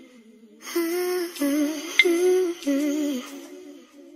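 A voice humming a melody in short, wavering phrases, with one sharp tick about two seconds in.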